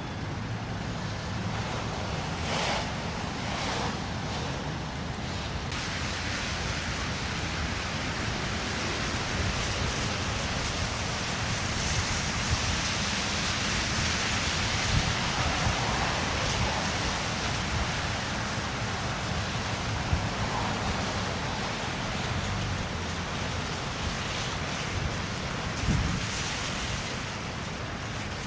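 Steady hiss of city street traffic, swelling towards the middle as vehicles pass.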